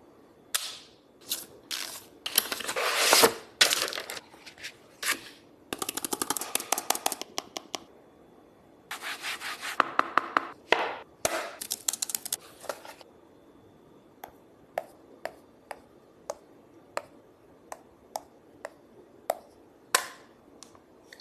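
Tablet packaging handled during an unboxing: cardboard and plastic rubbing, scraping and rustling in several bursts of a second or two, followed by a series of light, sharp taps and clicks about every half second.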